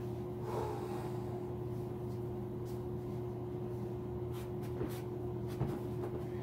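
Room tone: a steady low hum, with a few faint clicks and a soft rustle.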